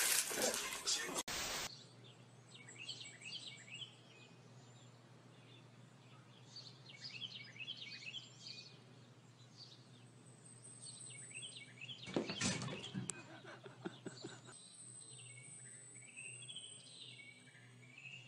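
Small birds chirping in short, falling chirps over a steady low hum, with a few seconds of rustling noise about twelve seconds in. It opens with a second or so of loud rustling that cuts off abruptly.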